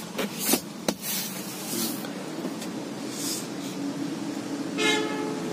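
Rear-seat armrest and cup holder of a car being handled: a few short clicks and rustles, with one sharp click about a second in, over a steady low hum. A brief pitched tone sounds near the end.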